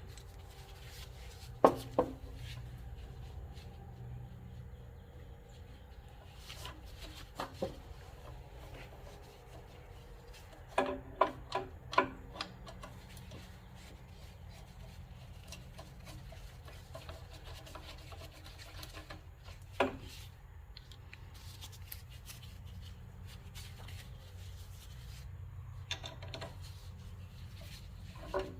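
Hand tools working on a tractor's shift-lever linkage: faint rubbing and scattered sharp clicks and knocks of metal, including a quick run of about four clicks near the middle, over a low steady hum.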